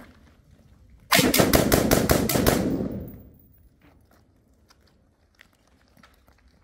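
MZ-4 5.56 mm rifle firing a rapid string of about ten shots in a second and a half, with an echo dying away about half a second after the last shot. The rifle runs through the string without a stoppage.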